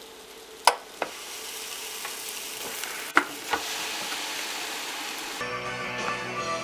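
Grilled cheese sandwich frying on a hot cooking appliance: a steady sizzle, with two sharp clicks about a second in and after three seconds. Guitar music comes in near the end.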